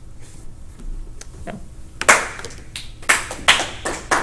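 A small group of people applauding, starting about halfway through, with individual claps standing out.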